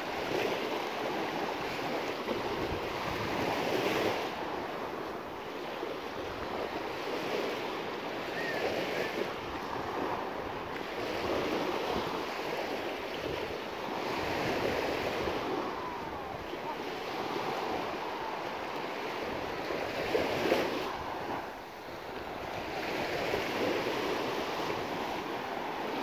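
Small sea waves washing onto the beach, the surf swelling and falling back every few seconds.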